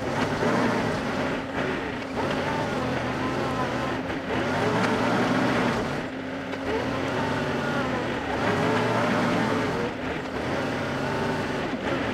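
Compact tractor's engine running under load, its pitch rising and falling, with brief dips about every two seconds.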